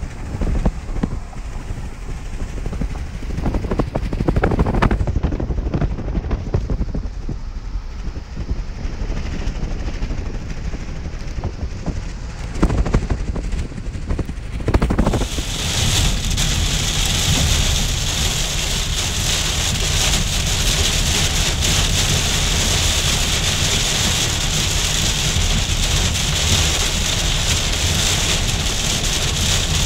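Inside a moving car: low road and wind rumble with occasional buffeting thumps. About halfway through it changes abruptly to the steady hiss of heavy rain pelting the car's roof and windshield in a downpour.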